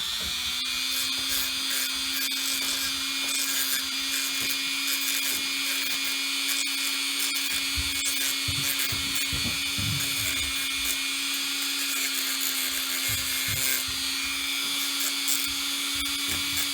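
Small high-speed electric power tool running steadily with an even high whine, smoothing the cut edges of replacement parts for a chronograph's support arms.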